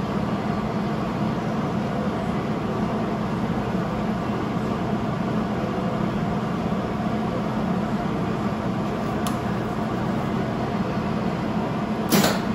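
A steady mechanical hum, like a fan running, with a couple of sharp clicks near the end.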